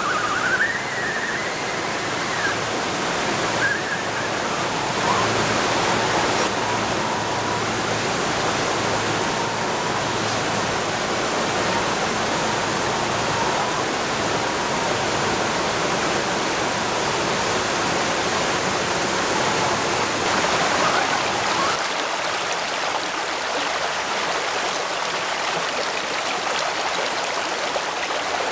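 Steady rush of river water flowing over rock, with the faint whine of a scale RC crawler's electric motor rising and falling now and then in the first half.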